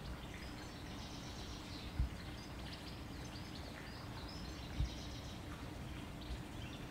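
Birds chirping and singing in the trees over a steady low outdoor rumble, with two brief low thumps about two and five seconds in.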